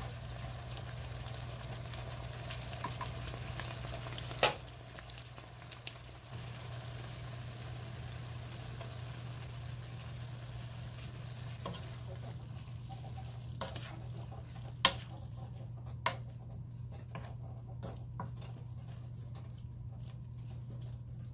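Bean sprouts, onion and carrot sizzling as they are stir-fried in a pan and turned with a wooden spoon. The spoon knocks sharply against the pan once about four seconds in and several times in the second half, when the sizzle grows thinner.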